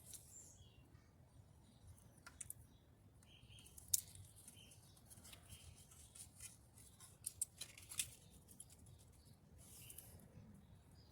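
Quiet handling noise: scattered light clicks and brief rustles of hands working on small parts, the sharpest clicks about four and eight seconds in and a short rustle near the end.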